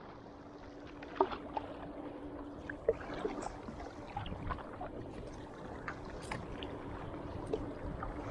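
Water lapping and splashing around a kayak, with scattered small knocks and drips from the paddle and hull. A steady motor hum runs underneath, from a jet ski running on the lake.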